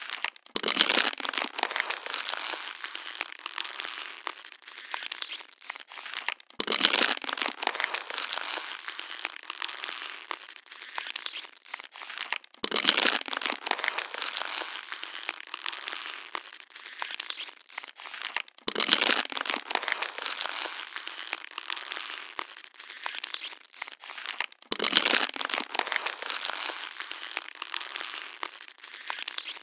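Plastic water bottle being crushed over and over, crackling and crinkling, with a loud crunch starting each round about every six seconds, five times in all.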